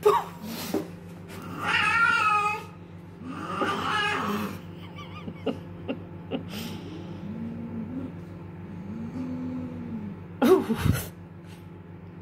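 Two cats fighting: long wavering yowls, then low drawn-out growling, with a sudden loud outburst about ten seconds in.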